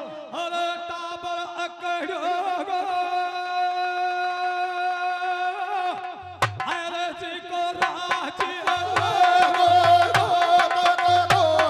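Nahda folk singing through a PA system: a male singer holds one long, loud note with vibrato for about six seconds. A drum beat and sharp jingling percussion strikes then join under his singing.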